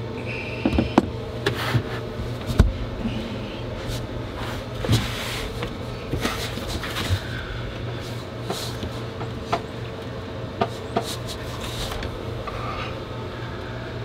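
Scattered knocks, clicks and rustling as tools and items are handled and moved about in a cramped compartment, the sharpest knocks in the first three seconds, over a steady low hum.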